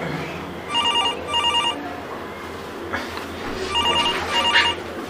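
Telephone ringing in a double-ring pattern: two short trilled rings about half a second apart, the pair coming twice, once about a second in and again near four seconds.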